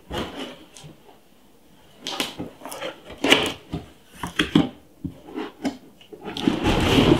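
Cardboard box being opened by hand: flaps pulled up and cardboard rustling, scraping and tapping in short bursts, with a longer scraping slide near the end.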